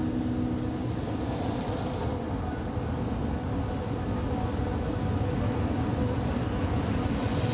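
Steady low rushing roar of ocean surf breaking on a rocky shore, growing brighter near the end as a wave comes in.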